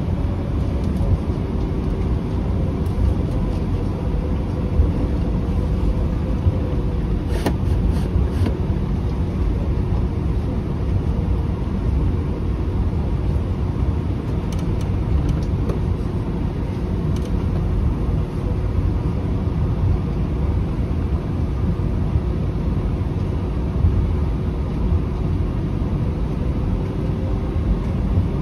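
Cabin noise of an Airbus A320 taxiing, its two IAE V2527-A5 turbofans at taxi idle: a steady rumble with a faint hum. A few light clicks come about a quarter of the way in and again around the middle.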